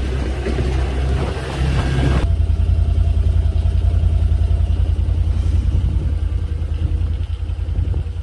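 A vehicle engine running with a low, pulsing rumble. About two seconds in, a hiss over the top cuts off suddenly and the engine rumble is left on its own.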